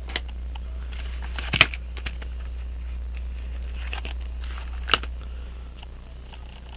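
Small sharp clicks and taps of watchmaker's tools on a pocket watch movement, the two loudest about a second and a half in and near five seconds, over a steady low hum.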